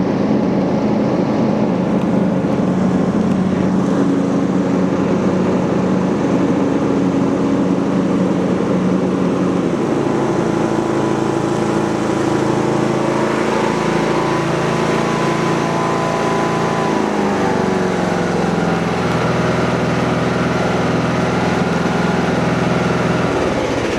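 Riding lawn mower engine running steadily at a loud, even level, its pitch shifting and dipping briefly about two-thirds of the way through before settling again.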